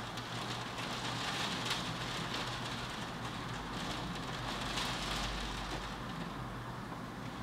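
Heavy rain falling steadily, swelling a little twice, with a low rumble of distant thunder building about five seconds in.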